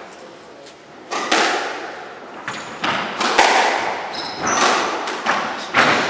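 Squash rally: the ball is struck by rackets and hits the court walls, several sharp thwacks echoing in the hall. A few short high squeaks from court shoes on the wooden floor come in between.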